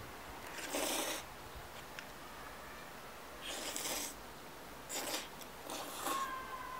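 Cold kimchi mixed noodles (bibim-guksu) slurped up from chopsticks: four short slurps spread through the few seconds.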